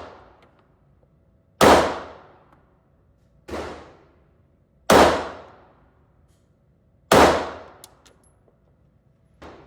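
Pistol shots fired one at a time, a couple of seconds apart: three loud shots, each with a trailing echo, and two fainter ones in between.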